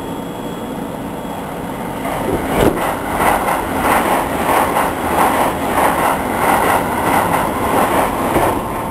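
A train passing at speed on the adjacent track, heard from inside a stopped train: from about two seconds in comes a loud rush with an even rhythmic clatter of wheels, about two to three beats a second, which ends near the end.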